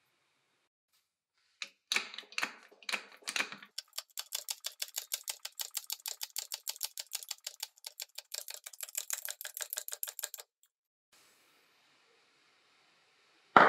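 Electric drill armature's steel shaft being pressed out of its laminated core in a press: a few knocks, then fast, even clicking, about seven a second, which stops abruptly. One loud knock comes right at the end.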